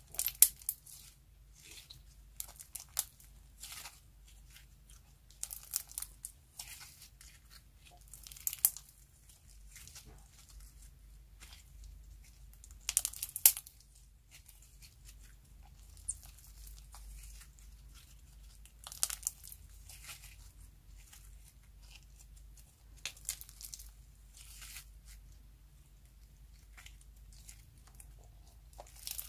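Sticky yellow slime packed with star-shaped sequins being stretched, folded and squeezed by hand, giving irregular crackles, pops and tearing sounds in bursts every second or few seconds.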